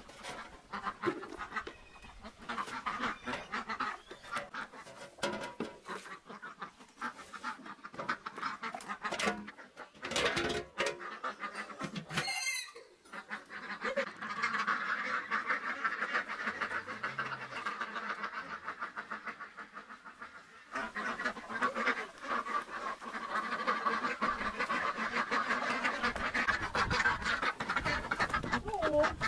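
Fowl calling in a dense, rapid chatter that thins out twice for a few seconds, with one brief sharp sound about twelve seconds in.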